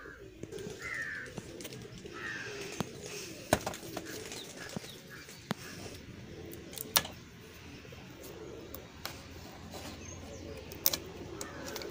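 A few sharp clicks and taps from handling a plastic engine-oil bottle as its screw cap is twisted open. Soft bird calls sound in the background.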